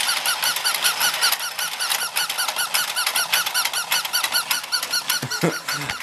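Battery-powered penguin race toy running, its electronic sound chip playing a rapid string of short squeaky beeping notes, about seven a second. Described as a little noisy.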